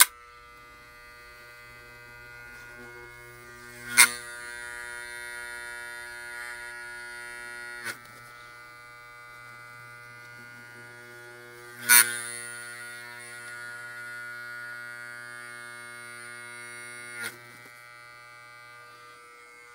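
An old Wahl magnetic-motor hair clipper humming steadily while its blades are grabbed and held by hand. The motor keeps humming against the stalled blades, which shows its low torque. Two sharp clacks come about 4 and 12 seconds in, each followed by a louder stretch of running, with softer clicks near 8 and 17 seconds.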